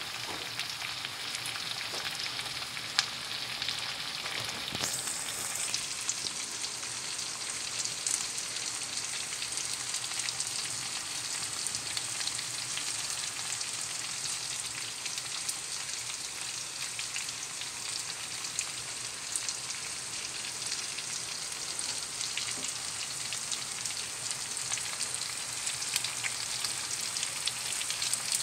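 Chicken pieces, potato chunks and green onion sizzling in a stainless steel frying pan: a steady frying hiss with scattered small pops. The hiss turns brighter about five seconds in.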